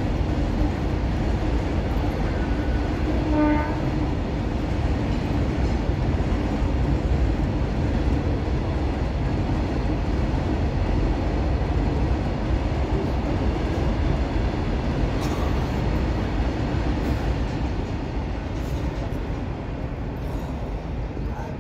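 Open steel freight wagons of a long goods train rolling past on the track: a steady noise of wheels on rail that eases slightly near the end. A short horn-like tone sounds about three and a half seconds in.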